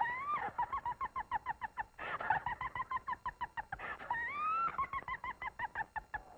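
High, hen-like cackling as a cartoon sound effect: a rising squawk, then a quick run of clucks about six a second, repeated in several runs with another rising squawk about four seconds in.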